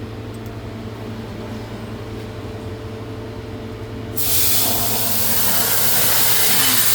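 Steady hum of shop machinery, then about four seconds in a CNC plasma cutter's torch fires and settles into a loud, steady hiss as it cuts steel plate.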